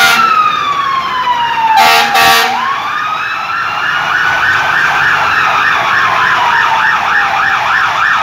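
Fire truck sirens: one wailing siren sliding slowly down in pitch, then up and down again, while a second siren warbles quickly, about three cycles a second, from about three seconds in. Two short air-horn blasts sound near the two-second mark.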